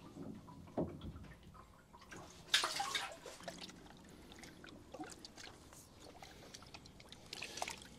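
Water splashing and dripping as a koi is handled in a net and lowered in a fish sock into a shallow measuring bowl, with one louder splash about two and a half seconds in.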